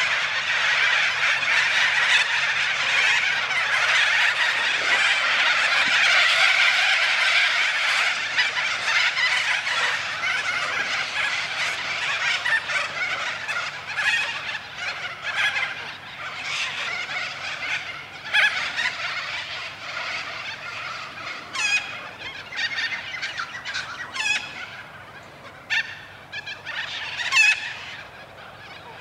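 A large flock of corellas screeching in a dense, continuous chorus. It gradually thins out into separate harsh calls, with a few louder single screeches near the end.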